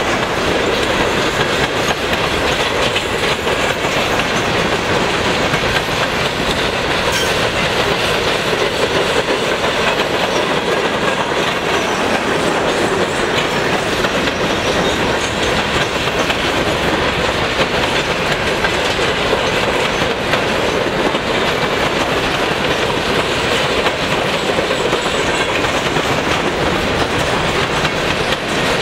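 Open-top hopper cars of a CSX coke train rolling past close by, a steady noise of steel wheels running on the rails that holds unchanged.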